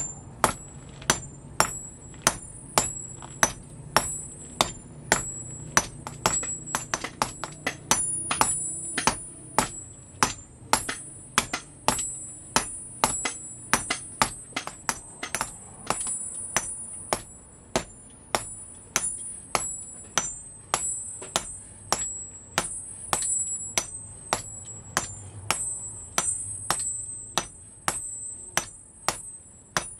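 Hand hammer blows on red-hot steel on an anvil, about two strikes a second in a steady rhythm, each with a high metallic ring: hand-forging the stock for an adze axe.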